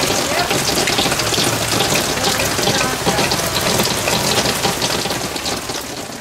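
Heavy downpour from a severe thunderstorm: a dense, steady hiss of pouring rain full of small drop hits, easing slightly near the end.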